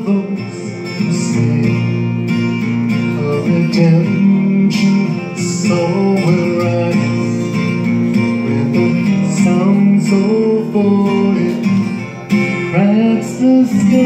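A man singing a worship song while accompanying himself on a strummed acoustic guitar.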